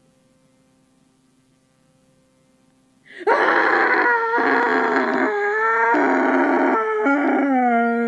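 Cartoon chicken sound effect: loud, deep squawking calls that start about three seconds in after faint hum. They come in five stretches, and the last one slides down in pitch.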